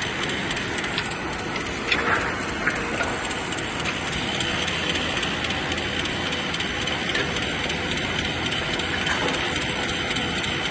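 CNC rip saw machine running: a steady high whine over a constant clatter of small knocks and clicks.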